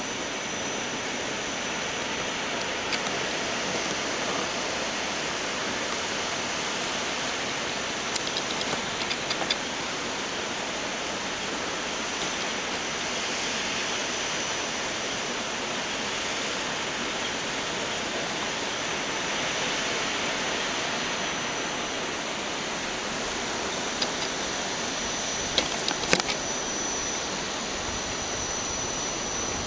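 Steady, even rush of water from a tall waterfall dropping down a cliff face. A few brief clicks come about a third of the way in and again near the end.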